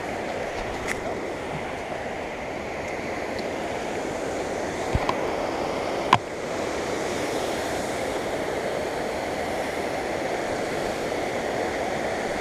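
Steady rush of flowing creek water, with a sharp click about six seconds in.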